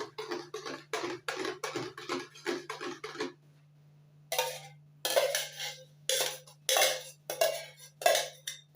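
A spoon stirring a mixture in a bowl. Quick, even strokes come about four a second for the first three seconds, then after a short pause come slower, louder scraping strokes against the bowl. A low steady hum sits underneath.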